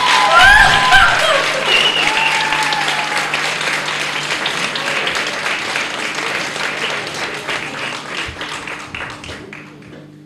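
Audience applauding, with cheers and whoops over the clapping in the first few seconds. The applause thins and dies away near the end.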